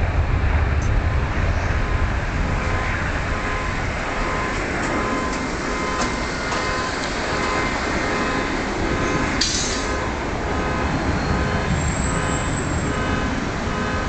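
Boeing 777's jet engines at full takeoff power: a loud, deep rumble as the airliner rotates and climbs away, easing slightly as it goes. From about four seconds in, a car alarm set off by the jet noise beeps faintly in an even on-off pattern.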